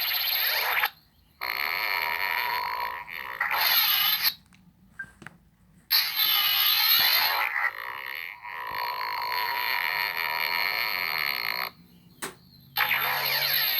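A string of cartoon-style sound effects in short bursts of one to two seconds with brief gaps between them, several with a fast warble or rattle.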